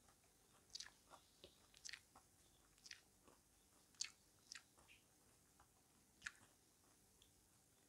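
Close-up chewing of crispy fried chicken: scattered soft crunches and mouth clicks, about a dozen, irregularly spaced, over a quiet room.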